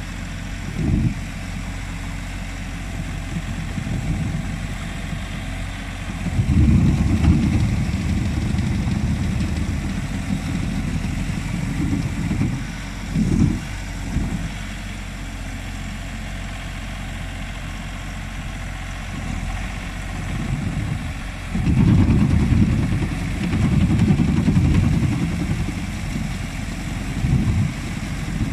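Engine of a Truxor amphibious reed cutter running steadily as the tracked machine works through shallow canal water, with irregular swells of low rumble, loudest about six to nine seconds in and again from about twenty-two seconds on.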